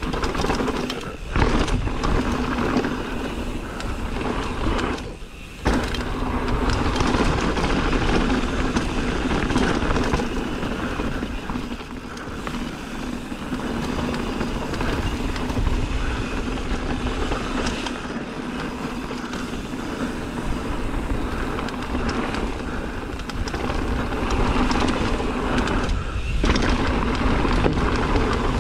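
Riding noise of a mountain bike on a rough downhill trail: a steady rush of tyres on dirt and rock with the bike rattling over the bumps, dropping away briefly about five seconds in.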